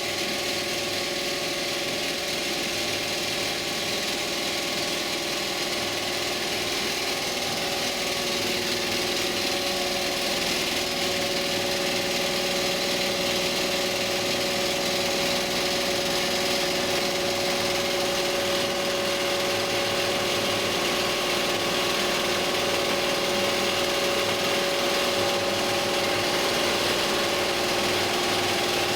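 Industrial rotary hook quilting machine running steadily at speed, a continuous mechanical hum with a few held tones under a dense stitching clatter, getting slightly louder about ten seconds in.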